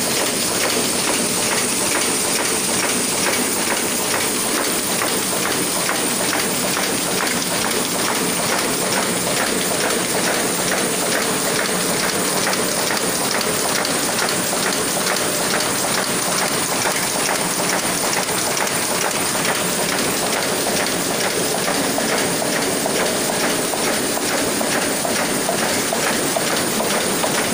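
1987 Komori Sprint S26 single-colour sheet-fed offset press running steadily, its sheet transport and cylinders making an even, fast rhythmic clatter.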